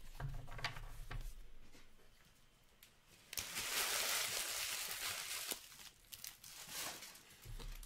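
Trading cards being handled with a few light clicks, then about three seconds in a foil trading-card pack wrapper crinkling and tearing open for a couple of seconds.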